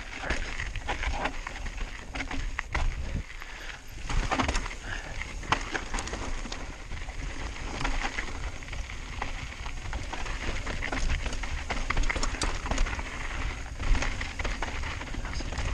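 Mountain bike descending rocky singletrack: tyres crunching over gravel and loose rock, with constant clicks and rattles from the bike, and wind rumbling on the chin-mounted action camera's microphone.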